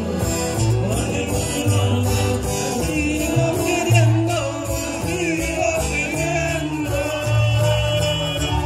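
A live band playing Latin American music, with an accordion carrying the melody over guitar and a steady bass line.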